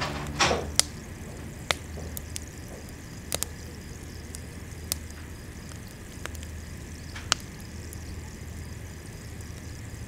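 A single sharp thump just after the start, then a quiet room with a low steady hum and a few scattered soft clicks.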